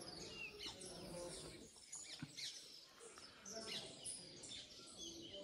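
Faint outdoor chorus of small birds: many short chirps and quick downward-sweeping calls, scattered and overlapping.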